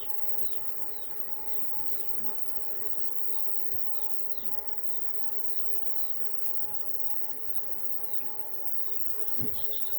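A small bird chirping: short, high chirps that fall in pitch, about two a second, over a steady hum. A single dull thump comes near the end.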